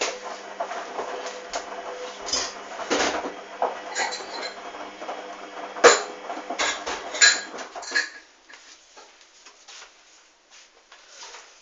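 Hoover DYN 8144 D washing machine mid-wash: the drum turns with a steady hum while the tumbling load clicks and clinks irregularly, then the drum stops about eight seconds in, leaving only a few faint clicks.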